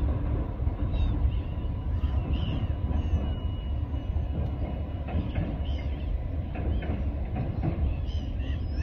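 A Class 484 electric train running along a pier across open water: a steady, distant low rumble. Short bird calls chirp above it.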